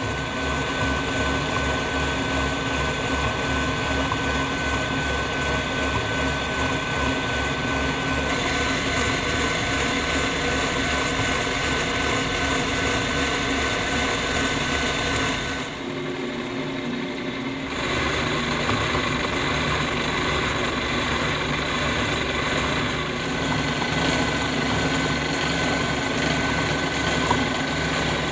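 Brown & Sharpe No. 2 horizontal milling machine taking a 1/8-inch-deep cut with an arbor-mounted milling cutter: a steady machining whine over a fast rhythmic thrum from the cutter's teeth. The sound dips briefly about two-thirds of the way through.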